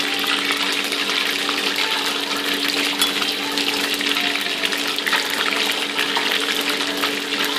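Batter-coated chicken lollipops deep-frying in a wok of hot oil, the oil sizzling and crackling steadily. A steady low hum runs underneath.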